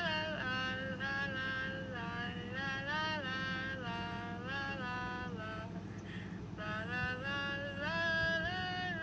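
A high female voice singing a wordless melody in held, gliding notes, with a short break about five and a half seconds in, over a steady low hum.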